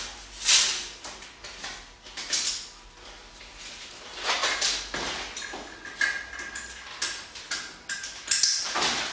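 Ankle cuff strap being fastened and clipped to a cable machine's low pulley: several short scraping, rustling strokes, the loudest about half a second in. A faint steady high tone runs through the second half.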